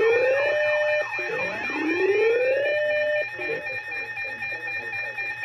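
Layered emergency alert siren and alarm tones. Two rising siren wails each climb over about a second and a half above steady alarm tones. The wails stop about three seconds in, leaving the steady tones under a lower warbling sound.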